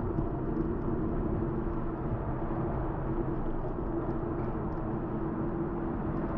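Steady wind and road rumble on the microphone of a camera riding on a moving bicycle, with a low steady hum and faint light ticks.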